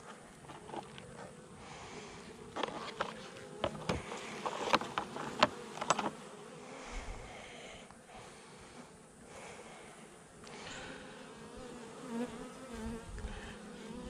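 Buzzing of a colony of Saskatraz honey bees at an opened hive, a steady hum. A run of sharp clicks and knocks about three to six seconds in.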